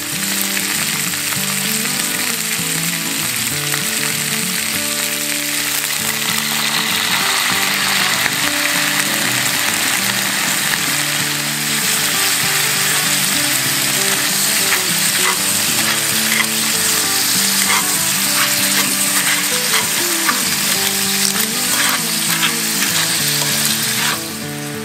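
Food frying in hot oil in a cast-iron skillet, a loud steady sizzle, with a few clicks of stirring in the second half. The sizzle cuts off suddenly near the end.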